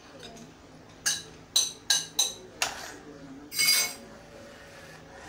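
Metal fork clinking against a ceramic bowl: five sharp, ringing clinks in quick succession starting about a second in, then one longer clatter about three and a half seconds in.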